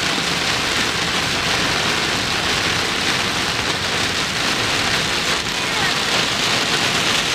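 Heavy rain beating on a car's windshield and roof, heard from inside the cabin as a steady, dense hiss.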